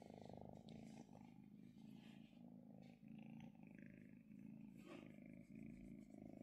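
Kitten purring faintly and steadily while being stroked, the purr pulsing with each breath in and out, about twice a second.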